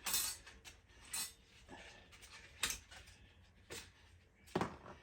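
Handling noise while unpacking a camping lantern: five short rustles and knocks about a second apart as parts and packaging are moved.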